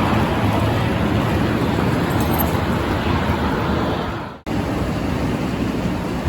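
Steady loud rumbling noise of an airport apron during boarding, strongest in the low end. It breaks off abruptly at an edit cut about four and a half seconds in and then carries on.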